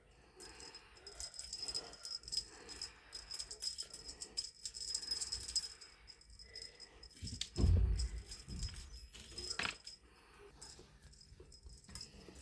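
A small bell jingling in quick, irregular shakes as a cat plays, with a single soft thump about seven and a half seconds in.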